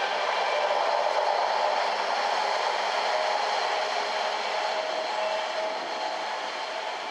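Container wagons of an intermodal freight train rolling past on the rails: a steady rumble of wheels on track that fades near the end as the last wagons pull away.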